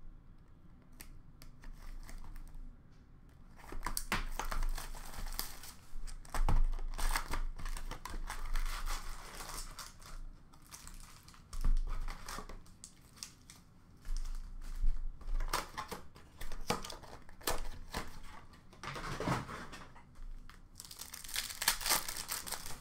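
Hockey card packs being torn open by hand from a hobby box: wrappers crinkling and ripping in irregular bursts, with short clicks and gaps between.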